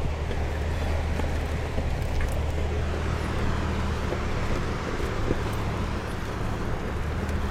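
Toyota four-wheel-drive vehicle driving slowly over a rough gravel mountain track, heard from inside the cabin: a steady low engine and road drone with occasional small knocks and rattles.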